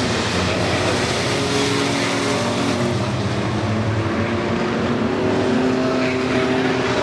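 Several race pickup trucks' engines running at once around a short oval. Their overlapping engine notes hold and shift in pitch, at a steady loudness.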